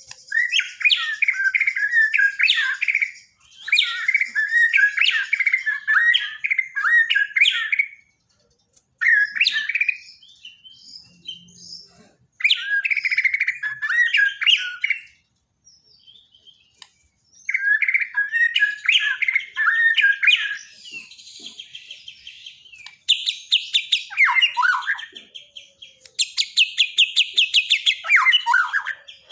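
Borneo white-rumped shama singing: a run of varied, loud whistled phrases a few seconds long with short pauses between them, ending with two bursts of fast, evenly repeated trilling.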